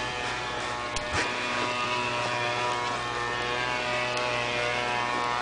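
A steady mechanical drone made of several even tones, like a motor running continuously, with a couple of light clicks about a second in.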